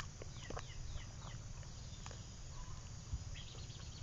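Faint bird chirping: a handful of short, falling chirps in the first second or so, then a few scattered ticks, over a low steady background hum.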